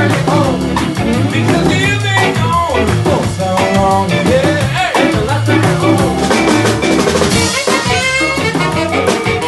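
Live soul-jazz band playing an upbeat groove: electric guitar, organ and drum kit with rimshots.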